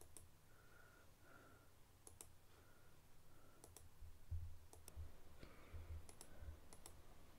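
Near silence with faint, scattered clicks at irregular intervals, about ten in all, and a few soft low thumps.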